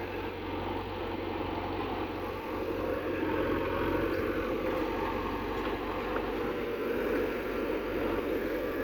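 Diesel engines of a JCB 3DX backhoe loader and a tractor running steadily while loading mud, getting a little louder about three seconds in.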